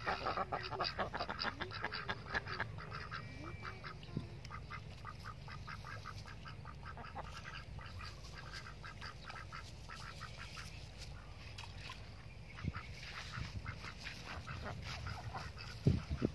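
A flock of domestic ducks quacking in quick runs of short calls, loudest at the start and thinning out partway through before picking up again.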